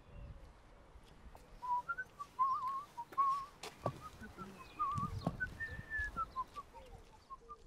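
A person whistling a tune of short notes, some wavering, starting about two seconds in, with a few low knocks around the middle.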